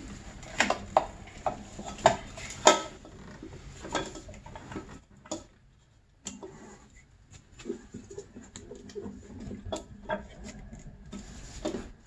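A snowmobile recoil starter housing being handled and set into position on the engine case, with scattered sharp clicks and knocks of hard parts touching, the loudest in the first three seconds.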